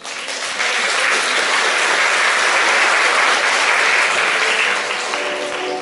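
Audience applauding, breaking out suddenly and fading after about five seconds as the dance music returns.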